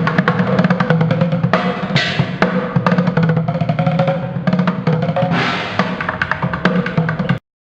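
A street drummer playing a fast, busy drum pattern of rapid strikes, which cuts off suddenly near the end.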